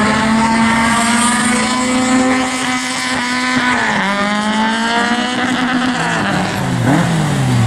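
Competition car's engine running at high revs, its pitch held nearly steady, then dipping about four seconds in and falling and rising several times near the end.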